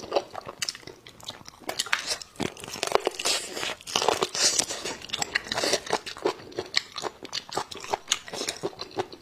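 Close-miked eating sounds: a person biting and chewing braised pig's trotter, with many short clicks and smacks in quick succession.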